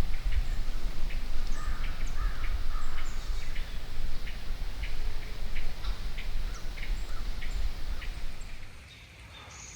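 Birds calling in woodland, a scatter of short sharp chips with a few longer calls, over a low wind rumble on the microphone that drops away near the end.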